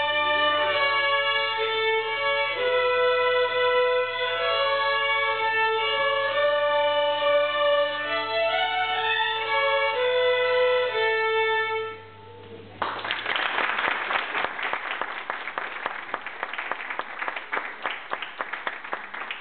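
A small ensemble of violins plays a Scottish tune together and ends the piece about twelve seconds in. After a brief pause, an audience applauds.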